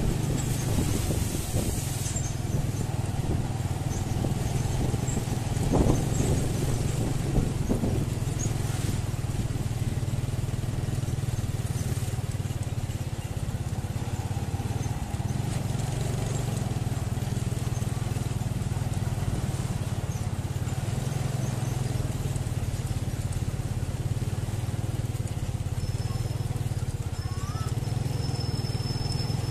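Motor vehicle engine running steadily at road speed, a low even drone over road noise, with a couple of brief knocks about six and seven seconds in and a faint high whistle near the end.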